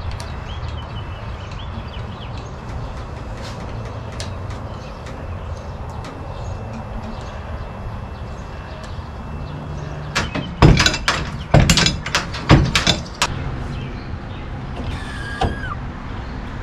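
A pickup truck bed being hoisted off its frame: a steady low hum, then a run of loud sharp knocks and clanks about ten to thirteen seconds in, and a brief squeak near the end.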